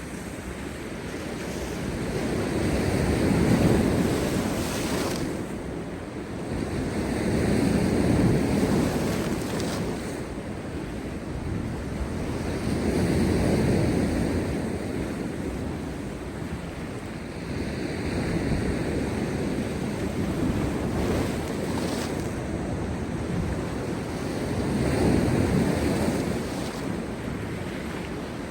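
Heavy sea waves breaking on rocks after a storm, the surf swelling and falling back in surges about every four to five seconds, with wind buffeting the microphone.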